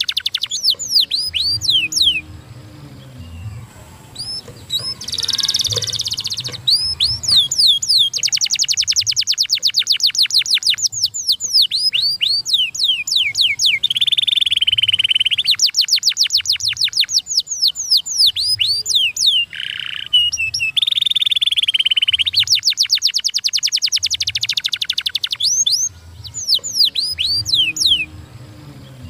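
Domestic canary singing a fast song: long runs of rapid, high, down-sweeping notes, broken by a few short buzzy rolls and brief pauses.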